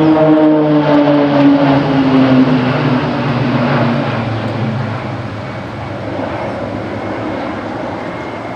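A formation of six Pilatus PC-9/A single-engine turboprop trainers passing overhead, their propeller drone sliding down in pitch as they pull away. The sound is loud at first and fades over the second half.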